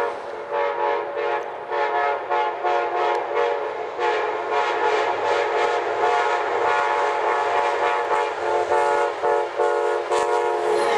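Amtrak P42DC locomotive's Nathan K5LA five-chime air horn sounded as a salute in a long, rapid run of short blasts with a few brief holds. The chord bends down in pitch near the end as the locomotive passes.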